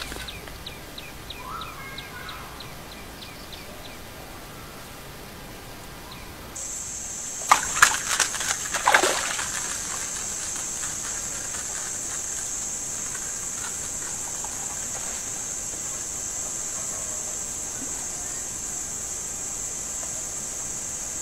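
Splashing and slapping as a fish is jerked out of a weedy pond on a fishing rod: a few sharp splashes close together about a third of the way in. A steady high-pitched buzz starts abruptly just before them and holds to the end, and a quick train of faint ticks sounds in the first few seconds.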